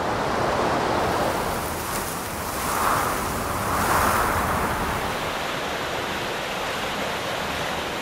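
Steady rush of glacial meltwater in a mountain gorge, swelling a little about three and four seconds in.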